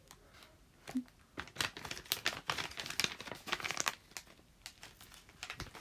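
Tissue paper crinkling and rustling as it is handled and scrunched, in a run of dense crackles from about a second and a half in until about four and a half seconds.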